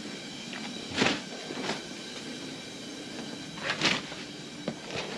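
Three short knocks or scrapes of things being handled, about a second in, a little after that, and near four seconds, over a steady hum.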